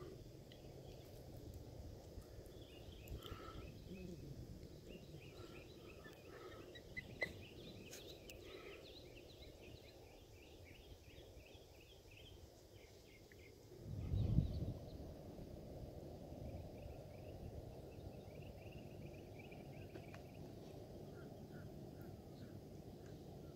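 Birds calling in rapid runs of short high notes over a steady low background noise, with one brief low rumble about fourteen seconds in.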